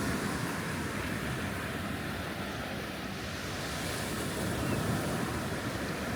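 Surf washing on the beach with wind. One wash swells louder about five seconds in.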